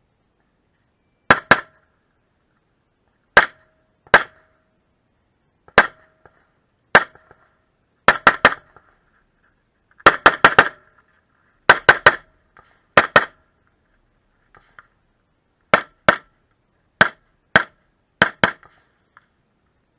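AR-15 rifle fired in a stage of about two dozen shots, mostly in quick pairs and short rapid strings with pauses of a second or so between them. Some shots are followed by a short ringing.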